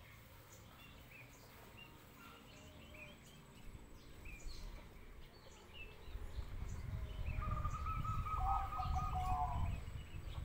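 Bangkok-bred zebra dove (perkutut) cooing a quick, pulsed series of notes about seven seconds in, lasting about two and a half seconds. Faint short chirps of small birds run throughout, and a louder low rumble swells under the cooing.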